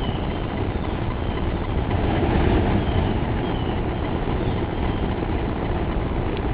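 Blower-fed buried furnace running: a steady rushing roar of forced air and fire from the blower and the flame venting out of the sand.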